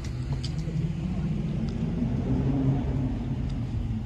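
Car engine running, its pitch climbing a little through the middle and easing back near the end.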